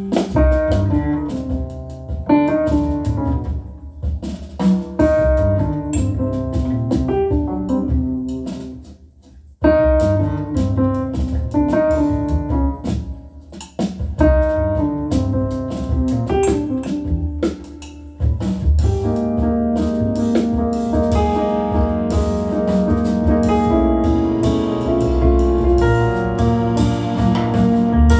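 Piano trio recording with piano and drums, played back through hi-fi floor-standing loudspeakers driven by a Soulnote A-2 integrated amplifier. The piano leads with short pauses about a third and about halfway through. After that the playing turns fuller and more sustained.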